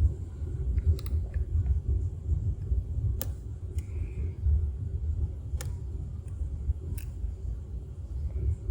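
Lock-picking sounds from an Abus 83/45 padlock: a low rumble of the lock being handled, with four sharp clicks spread through as the pick works the pins in the core.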